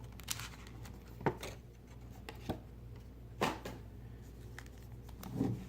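Trading card box and packs being handled and opened: a few separate crinkles and taps about a second apart, over a low steady hum.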